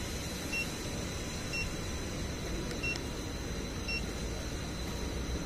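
Keypad of an A/C refrigerant recovery and recharge machine beeping as its buttons are pressed: four short electronic beeps about a second apart, each confirming a key press while the vacuum mode is being selected. A steady low hum runs underneath.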